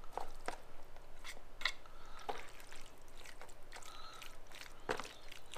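Barbecued chicken being shredded in a plastic tub with pronged shredding tools: irregular wet squishes of the sauced meat and clicks of the tines against the tub.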